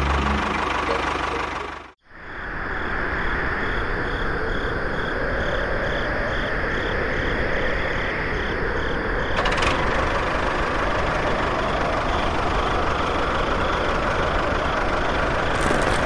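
A small motor running steadily, coming in right after a brief cut to silence about two seconds in.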